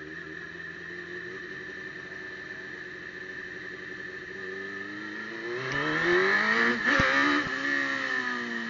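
Motorcycle engine coming up close: a steady engine hum, then about five and a half seconds in it gets louder and rises in pitch, peaking around seven seconds before the pitch falls away again. A steady high whine runs underneath throughout.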